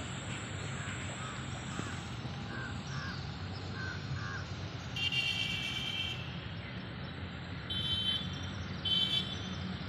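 Crows cawing: one harsh call about five seconds in lasting about a second, then two shorter caws near the end. Faint chirps of small birds and a steady low outdoor rumble lie under them.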